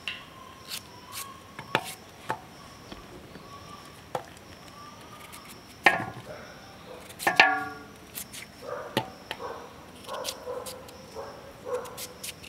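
A large kitchen knife cutting a carrot held in the hand into long strips, giving sharp, irregular cuts and clicks of the blade. An animal gives short calls in the second half, the loudest about seven seconds in.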